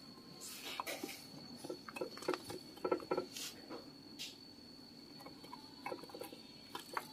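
Hands working loose potting soil around a bonsai's roots in a ceramic pot: scattered soft rustles, crumbling and small clicks of soil and grit.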